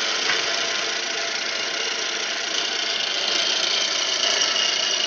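Milling machine's end mill cutting an aluminium trigger housing: a steady machining noise, with a high steady whine that comes in about halfway and grows a little louder.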